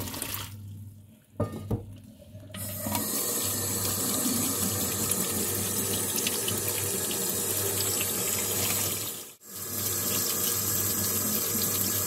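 Water running into a sink and splashing through a plastic colander of boiled dumplings, starting about two and a half seconds in and steady after that, with a brief break about three-quarters of the way through. A couple of sharp knocks come in the quieter stretch before the water starts.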